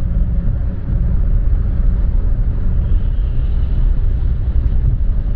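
Steady low road and engine rumble heard inside the cabin of a moving car on a multi-lane highway.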